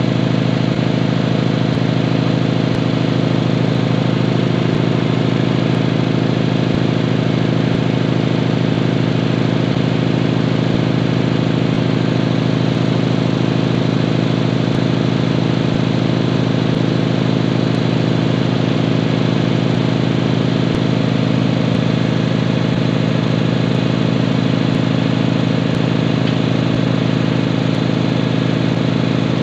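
Tanabe HC 277A reciprocating main air compressor running steadily under load on a test run, pumping up to about 3 MPa (30 bar), with a steady low mechanical drone.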